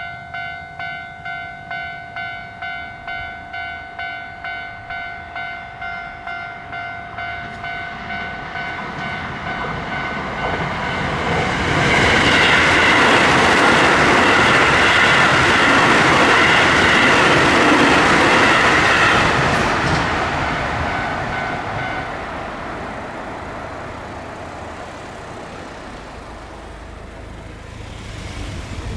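Japanese railroad crossing alarm bell ringing in quick, even dings, about two a second. About a third of the way in, a Keio Line electric train rushes through the crossing, loudest near the middle, then fades away. The bell stops about three-quarters of the way in, while the train noise is still dying down.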